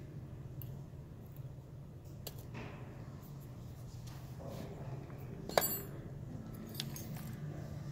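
A metal pick scraping and clicking on a freshly cast aluminum piece, cleaning plaster investment from it, with scattered small clicks. A little over halfway through comes a single sharp metal clink with a short ring as metal is set down, followed by a few softer clicks.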